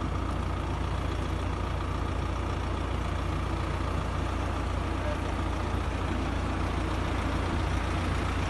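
Heavy vehicle engine running steadily at idle, a constant deep rumble.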